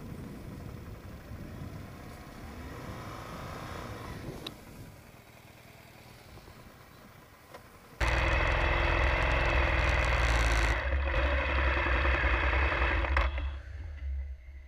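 BMW R1200GS boxer-twin engine running as the motorcycle is ridden through soft beach sand, rising in pitch a few seconds in. About eight seconds in it turns suddenly much louder with a heavy low rumble, and falls away about five seconds later.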